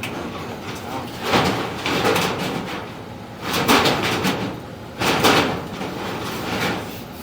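Scraping and rubbing noises in three bouts, from a drain-style inspection camera's push cable being fed through sheet metal ductwork.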